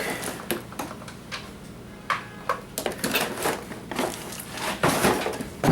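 Irregular knocks, clicks and rattles of a small box of scrap wire being handled and set on a scale.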